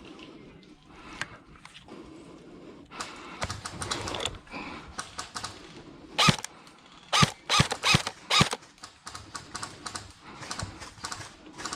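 Airsoft gunfire: five sharp single shots between about six and eight and a half seconds in, among a stretch of rapid clicking and rattling.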